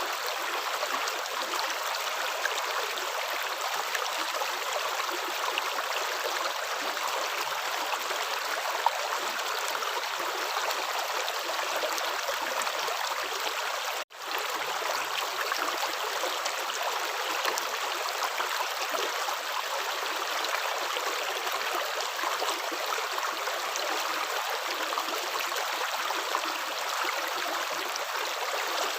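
Running water flowing steadily, like a stream, as an even rush with no footstep rhythm. It cuts out for a split second about halfway through, then carries on unchanged.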